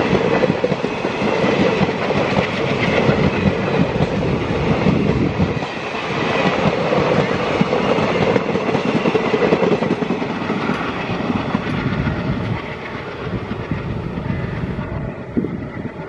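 Indian Railways passenger coaches rolling past at speed, the wheels clattering over the rail joints. The sound drops away over the last few seconds as the final coach passes and recedes.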